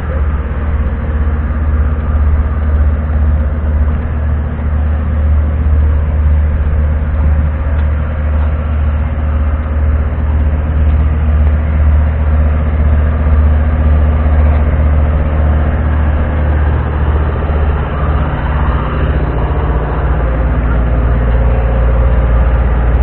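A heavy engine idling, a loud, steady low drone that holds unchanged throughout.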